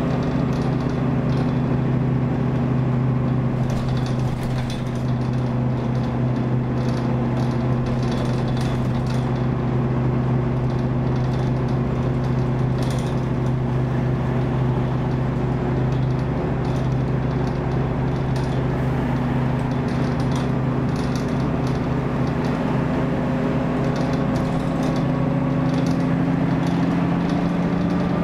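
Optare Tempo single-deck bus under way, heard from inside the passenger saloon: a steady diesel engine drone with road noise and scattered light rattles. In the last several seconds the engine note climbs in pitch as the bus picks up speed.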